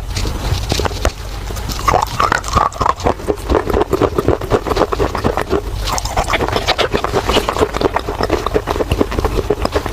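Baked clay (mitti) being chewed close to the microphone: dense, rapid crunching and crackling that goes on without a break.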